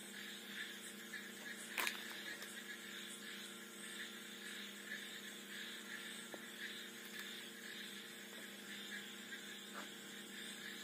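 Faint steady electrical hum, with one light click about two seconds in.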